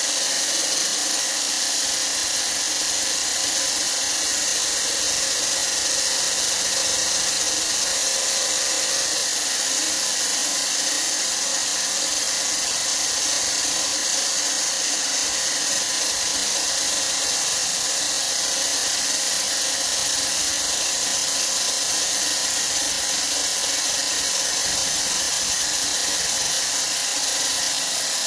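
A small electric kitchen appliance motor runs steadily at high speed with a constant whine, unbroken and unchanging in pitch.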